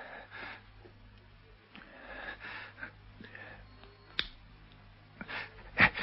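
A man breathing hard and wheezing, with one sharp click like a light switch about four seconds in and a louder breath near the end.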